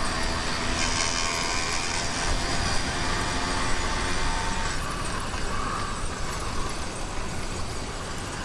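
YD100 two-stroke bicycle engine running while the motorized bicycle is ridden: a steady engine buzz under a broad rushing noise, the engine's tone growing less distinct about five seconds in.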